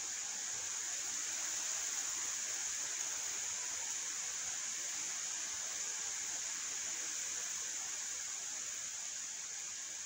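Steady hiss of wind, even throughout and strongest in the high range, with no distinct gusts, knocks or other sounds standing out.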